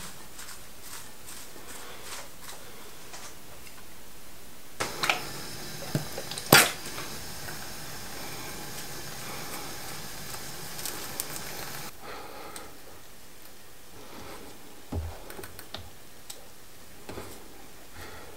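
Light clicks and rustles of fingers and wooden chopsticks tossing floured chives in a ceramic bowl, then chopsticks clicking and tapping against a ceramic bowl while stirring chives and floured oysters through beaten egg. The loudest is a sharp tap about six and a half seconds in.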